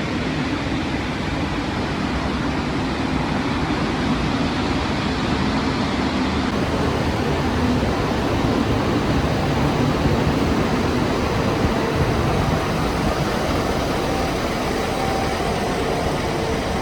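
Steady, loud mechanical roar with a low hum underneath, unbroken throughout: the strange noise coming from a building, loud enough that the fire department was called.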